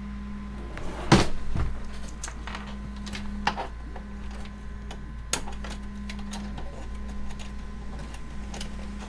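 Scattered clicks and knocks of PC cables and plastic connectors being handled inside a computer case, the loudest about a second in. Under them a low hum pulses on and off about once a second.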